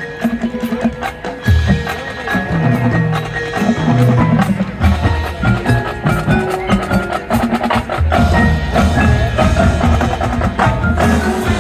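Marching band playing its field show: front-ensemble mallet percussion and regular drum strikes over sustained low notes.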